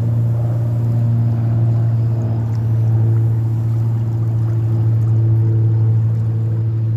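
A steady, low mechanical hum, such as a running motor or engine, holding an even pitch throughout.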